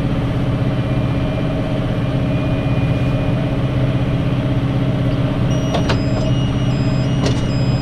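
Tractor engine running steadily while pulling a fixed roller chamber round baler through barley straw. About five and a half seconds in, a high beeping starts, stepping back and forth between two notes: the baler's alarm signalling that the bale chamber is full. Two sharp clicks sound over it.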